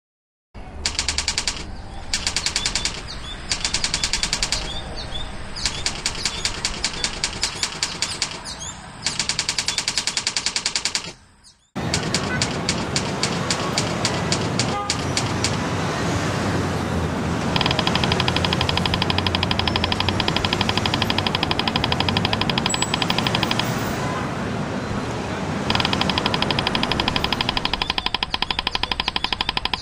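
Typewriter key clatter sound effect: rapid, even runs of clicks broken by short pauses, with a brief silence about eleven seconds in, over a low steady hum.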